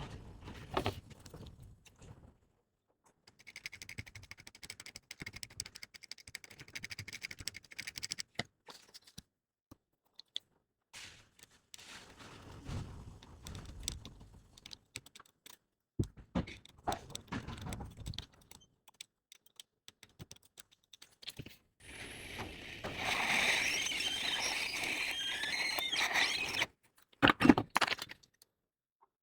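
Small repair tools scraping and clicking against a phone's circuit board, in short separate bursts. About three quarters of the way through, a steady hiss of air comes on for about five seconds and cuts off suddenly.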